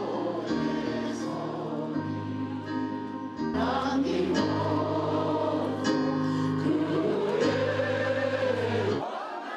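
Church music: a choir singing long held chords that change every second or two. It grows louder a few seconds in and stops abruptly near the end.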